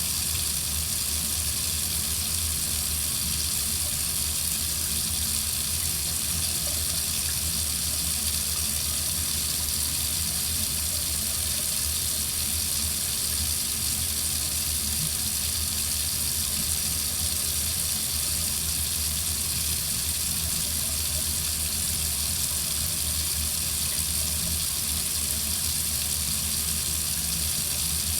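Water running steadily from a faucet into a sink, an even hiss with no change.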